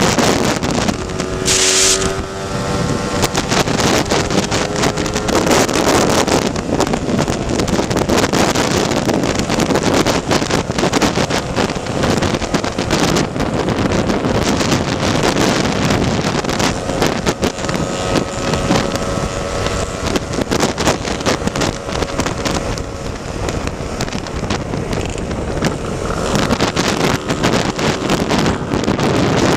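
Scooter engine running at road speed under heavy wind noise on the microphone. Its pitch rises and falls with the throttle.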